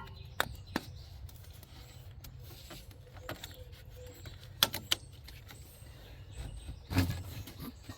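Scattered sharp clicks and knocks of tools and metal as the serpentine belt is worked back on past the belt tensioner pulley, with the heaviest thump about seven seconds in, over a steady low hum.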